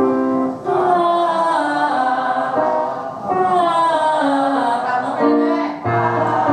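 Voices singing a drawn-out open vowel together, sliding through the notes of a vocal warm-up along with a piano. Steady piano chords sound at the start and again near the end.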